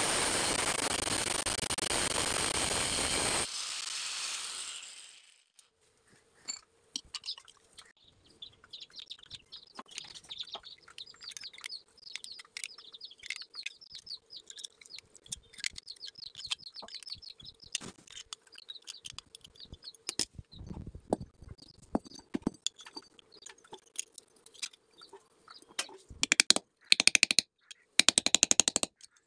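An angle grinder cuts through copper pipe for about three and a half seconds, then the cutting stops and the disc spins down. Birds chirp faintly in the background. Near the end come quick runs of loud hammer blows on the copper sheet against an iron block.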